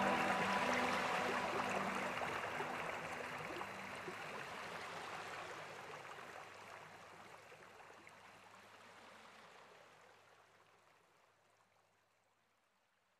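Running-water stream ambience from the background soundtrack, fading out gradually to silence about twelve seconds in.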